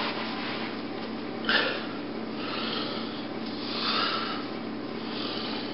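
Steady hum of room tone with faint breathy noises, and one short sharp click or puff about one and a half seconds in.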